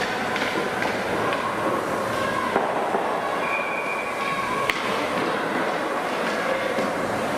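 Ice hockey game play: skate blades scraping and carving on the ice, with stick clacks, brief squeals, and one sharp clack a little past the middle.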